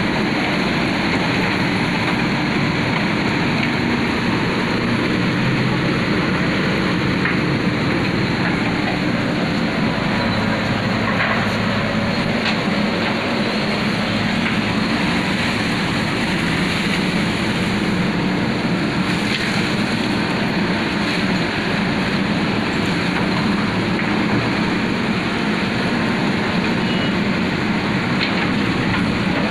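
Diesel engine of a JCB backhoe loader running steadily while its arm digs in the river channel.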